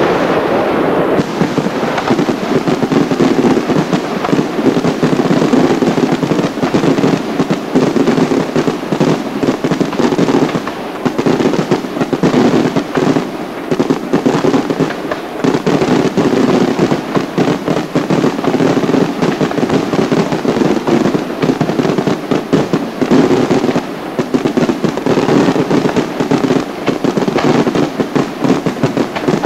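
Fireworks display: a dense, continuous barrage of bangs and crackle from bursting shells and crackling stars, with no pause.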